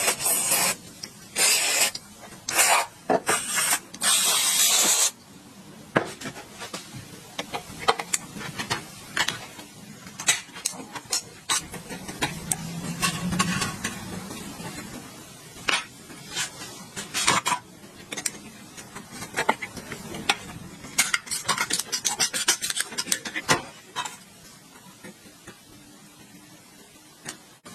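Hand work on metal parts: several loud rasping strokes in the first few seconds, then scattered clicks, knocks and softer scraping.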